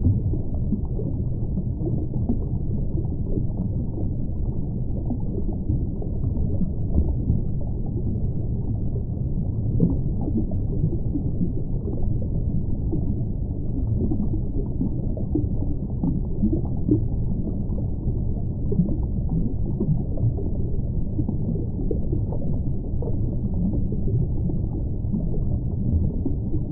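Aquarium filter water flow: a steady low rumble with small crackles.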